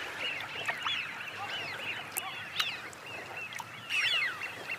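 A flock of Eurasian wigeons calling: many short overlapping whistles, each rising then falling, with a louder cluster of calls about four seconds in.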